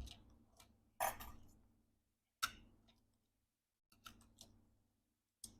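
A handful of faint, irregularly spaced clicks and taps from handling a laptop logic board and its cable connectors during removal.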